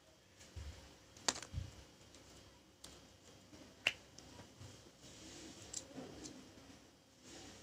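Small plastic paint pots being handled, their snap-on lids clicking open: a few sharp faint clicks, the loudest about a second in and at about four seconds, with soft handling knocks between.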